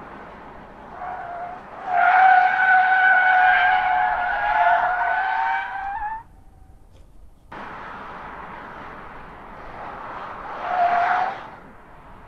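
Mitsubishi Lancer's tyres squealing on asphalt as the car is swerved hard in an ESC stability test: a long, loud, wavering squeal for about four seconds with ESC switched off. After a break in the sound, a second, much shorter squeal comes near the end with ESC switched on, over the car's running and road noise.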